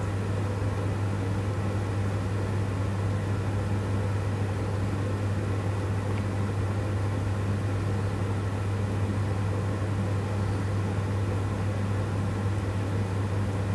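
A steady low hum under an even hiss, with no other sounds standing out.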